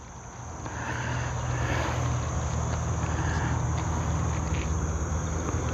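Crickets chirring steadily, under a low droning hum that swells about a second in and then holds steady.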